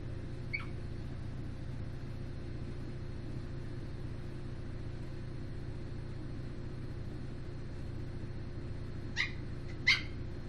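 Three short, high yips from a dog, one about half a second in and two close together near the end. Under them is the steady low hum of a Samsung WD136 front-load washer-dryer running.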